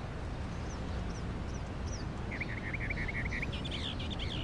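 Small birds chirping over a steady low background rumble: a few faint high chirps at first, a quick run of chirps from about halfway, and busier twittering near the end.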